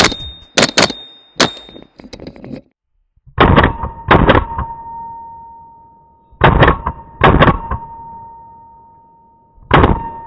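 Rifle shots from a short-barrelled AR-pattern rifle fitted with a five-prong flash suppressor: several quick shots in the first second and a half, then pairs of shots about 3.5 and 6.5 seconds in and a single shot near the end. A metallic ringing tone lingers and fades after each pair.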